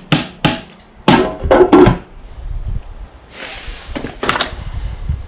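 Hard knocks and clunks as tools and engine parts are handled during an engine strip-down: three quick clacks, then two louder clunks with a short ring about a second in, followed by a scraping rasp with a couple more knocks near the end.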